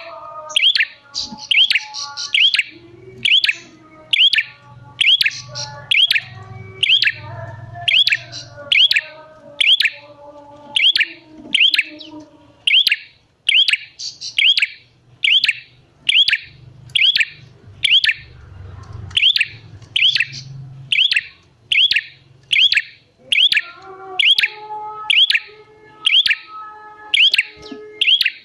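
A prenjak calling a sharp, high chirp over and over at an even pace, about three every two seconds. Softer, lower bird notes run beneath it for much of the time.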